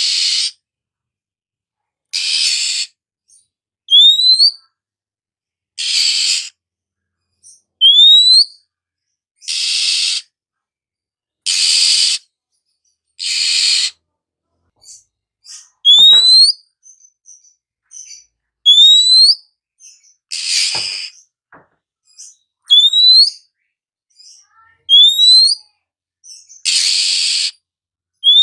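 Oriental magpie-robin (kacer) calling: harsh, rasping churr notes about every two seconds, alternating with short clear whistles that rise sharply in pitch.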